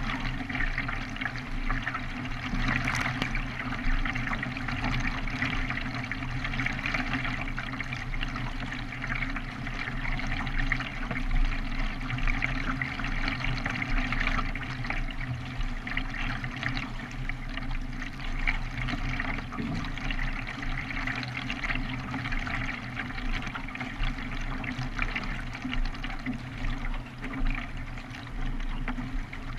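Water splashing and rushing against a racing kayak as it is paddled, a steady wash of water noise.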